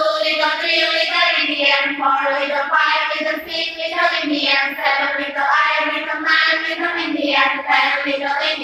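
A group of young women singing a quick chant-like song together in unison, with no break.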